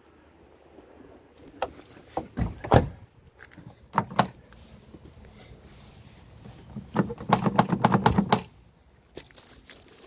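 VW Golf door being shut, with a loud thunk a few seconds in and a couple of sharp knocks after it. Later comes a quick run of rattling clicks from the outside door handle being tried, checking that the hand-locked door stays locked.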